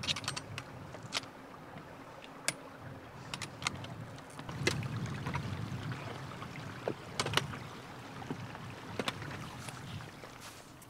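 Steps up a rocky mountain trail: sharp, irregular clicks of boots and hiking-pole tips striking stone, over a low rumble of wind on the microphone that swells and fades.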